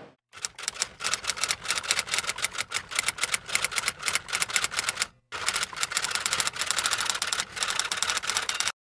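Typewriter typing sound effect: rapid key strikes in two runs, with a short break about five seconds in, stopping shortly before the end.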